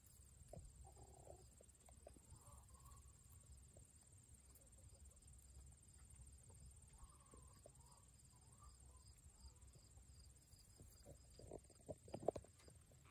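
Near silence on pasture, with faint insect chirping in a steady, evenly repeating pulse. A few sharp clicks come near the end.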